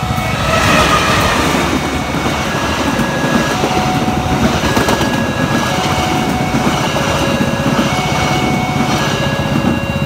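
A CC 203 diesel-electric locomotive (GE U20C) hauling passenger coaches passes close by. Its engine and wheels are loudest in the first second or two, then the coaches' wheels rumble steadily on the rails. Throughout, a level-crossing alarm sounds two electronic tones that alternate about once a second.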